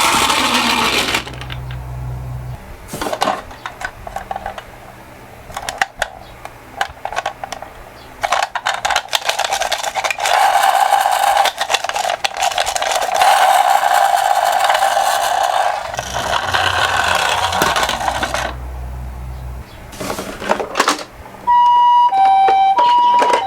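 Toy minicars clattering and rolling down a slope, with many small clicks and knocks and a steadier rolling noise through the middle. Near the end a toy ambulance's electronic two-tone siren starts, alternating between a higher and a lower note.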